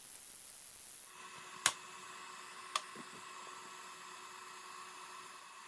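Faint hiss, then a quiet steady hum with two sharp clicks about a second apart from hands handling the 3D-printed plastic nut and bolt.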